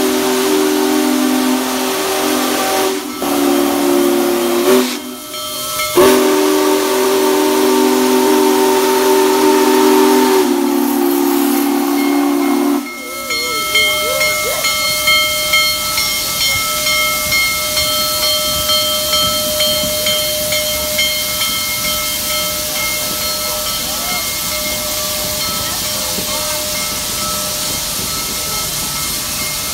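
Union Pacific Big Boy No. 4014 steam locomotive blowing its chime whistle, several notes at once, in long blasts with two short breaks. About thirteen seconds in the whistle stops and steady hissing steam takes over.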